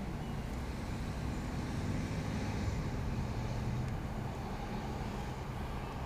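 Steady low rumble of passing road traffic, with an engine hum.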